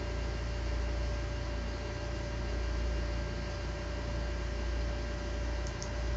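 Steady hum and hiss with a thin steady tone from a Sony Vaio E-series laptop, with two quick faint clicks near the end. This is the clicking the owner hears from the laptop whenever Internet Explorer or Firefox is open, but not with Chrome.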